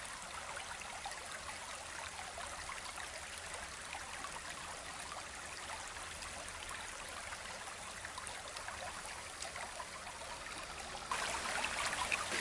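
Shallow stream running and trickling over stones, a steady rush of water that gets louder about eleven seconds in.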